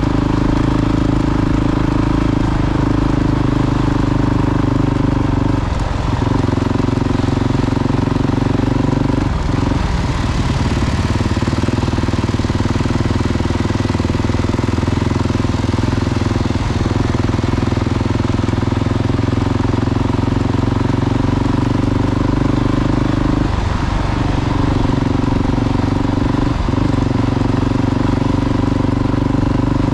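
Motorcycle engine running steadily while riding, its even note breaking briefly about five times.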